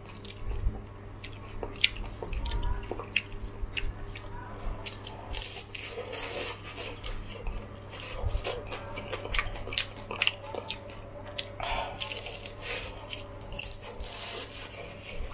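Crisp batter-fried shrimp being chewed, with many irregular crunches, over a steady low hum.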